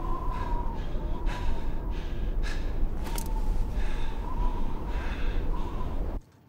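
A man gasping and panting in rapid, ragged breaths over strong blizzard wind, which has a heavy low rumble and a thin wavering whistle. The wind cuts off suddenly about six seconds in.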